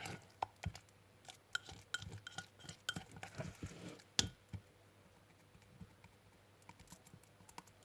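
A utensil clicking and tapping against a bowl as thickened homemade slime is stirred: scattered light clicks, a sharper knock about four seconds in, then only a few faint ticks.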